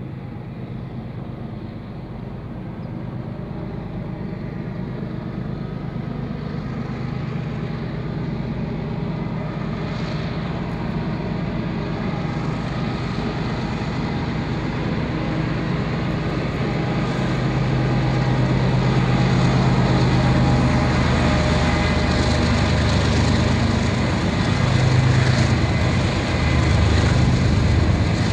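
A freight train led by four diesel locomotives approaching and passing. The steady, low engine drone grows steadily louder as the train nears, joined by the rumble of the rolling cars as the locomotives go by below.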